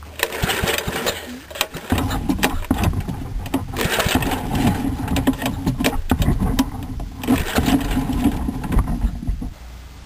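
8 HP Kohler single-cylinder engine being cranked over without firing, because there is no spark at the plug. A few clicks come first; the cranking starts about two seconds in and stops just before the end.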